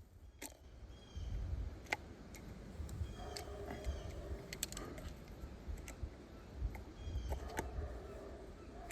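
Handling of a pump-action 20-gauge shotgun and its shells: scattered small metallic clicks and rattles with low rumbling handling noise, as shells are fed into the gun.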